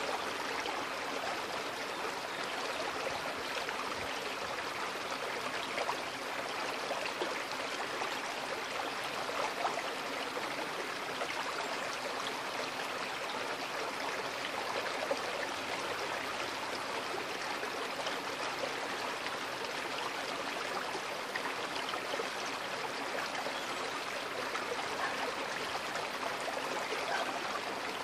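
Small, shallow creek flowing over a stony bed: steady running water.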